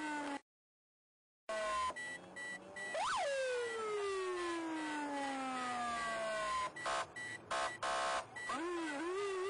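Police patrol car siren heard from inside the pursuing car: wails that shoot up and then fall slowly, one cut by a dropout of about a second near the start and another starting about three seconds in. About seven seconds in come a few short, harsh horn blasts, then a quick up-and-down warble near the end. A faint high beep comes and goes behind it.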